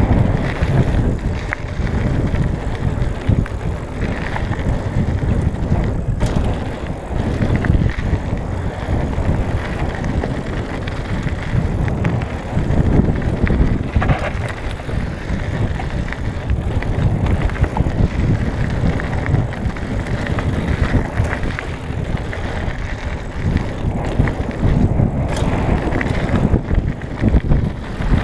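Trek Marlin 6 hardtail mountain bike riding fast down a gravel trail: a continuous rough rumble of tyres on loose gravel, with the bike rattling over the bumps.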